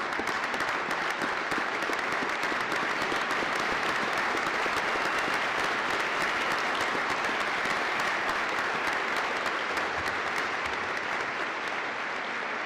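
A large audience applauding steadily, many hands clapping at once in a sustained round, easing slightly near the end.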